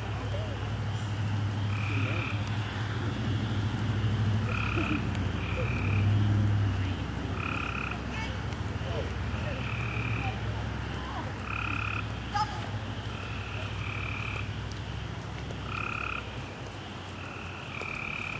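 Frogs calling outdoors: short, flat croaks of about half a second, one roughly every second and a half, two call forms alternating as if two frogs answer each other. A steady low hum runs underneath.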